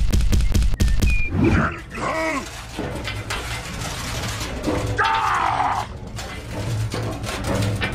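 Animal-like cries, two or three drawn-out calls that bend up and down in pitch, over a steady low hum, with rapid clicking in the first second.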